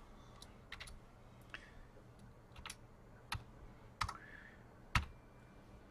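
Computer keyboard keystrokes: about eight sharp, separate clicks at irregular gaps of roughly half a second to a second, over a faint steady low hum.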